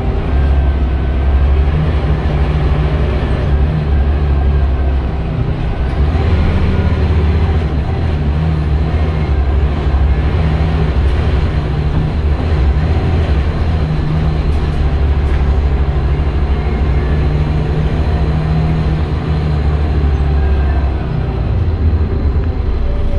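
A Scania L94UB city bus heard from inside the saloon while under way: its diesel engine, which the rider guesses is a Scania DS9, runs with a loud low drone under road noise. The engine note eases briefly about five seconds in and again near the end.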